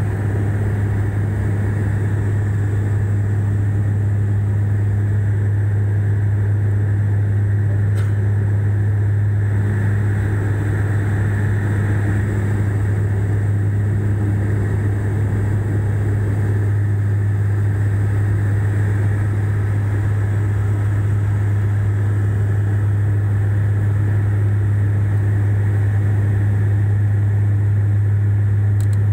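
Steady low drone of a turboprop airliner's propeller and engine, heard inside the cabin: a deep, unchanging hum over a constant rush of air.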